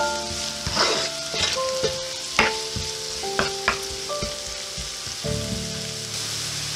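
Sliced onions and garlic sizzling in oil in a nonstick frying pan, stirred with a spoon that scrapes and knocks against the pan several times in the first four seconds.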